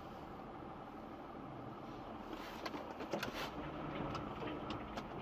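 Steady low rumble of a car's engine and tyres on a slushy road, heard from inside the cabin, with a few light clicks about halfway through.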